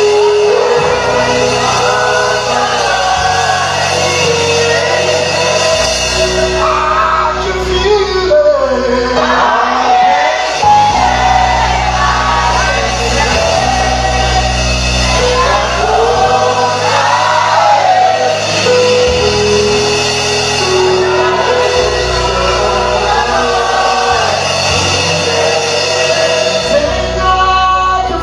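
Gospel praise music with singing: sustained keyboard chords, a bass line and voices, loud and continuous.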